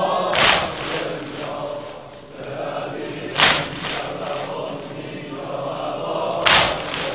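A mourning crowd beats its chests in unison (sineh-zani), three loud slaps about three seconds apart. Low chanting from the gathering goes on between the strokes.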